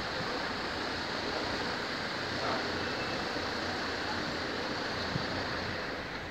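Steady noise of a car driving slowly in town, heard from inside the car: an even rush of engine, tyre and air noise with no distinct events.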